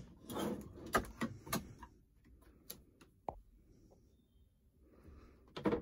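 A small pull-out storage drawer being pulled open on its metal slides: a quick run of light clicks and knocks over the first couple of seconds, two single clicks around the middle, and another short cluster of clicks near the end.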